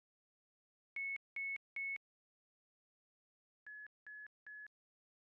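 Hearing-test pure tones: three short, steady high-pitched beeps about a second in, then after a pause three more at a slightly lower pitch and quieter.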